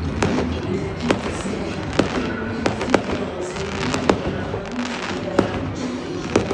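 Fireworks display going off: a string of sharp bangs about one a second over the crackle and rumble of the shells, with music playing underneath.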